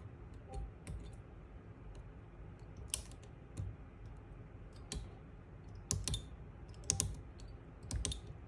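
Scattered short, sharp clicks and taps, about one a second, from small tools and parts being worked by hand on a rifle's trigger assembly while fitting a trigger spring.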